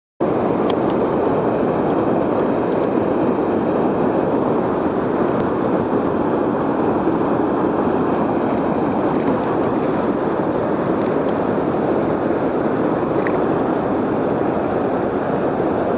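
Steady rush of river water pouring over a dam, a constant even roar with no rhythm or change.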